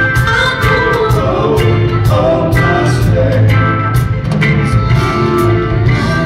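Live band music in a concert hall: a woman singing over electric guitar, drum kit and a strong low bass, loud and steady throughout.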